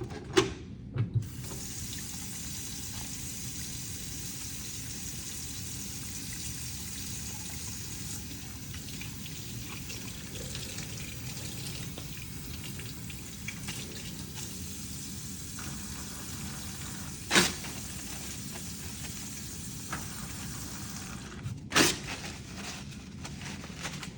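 Tap running into a sink while hands are washed: a steady rush of water that starts about a second in and stops a couple of seconds before the end. Sharp knocks come as the water starts, once about three quarters of the way through, and again just as it stops.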